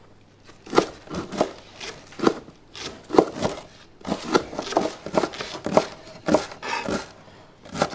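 Chef's knives chopping leeks on wooden chopping boards: irregular sharp taps of the blades hitting the boards, about two a second, from several people cutting at once.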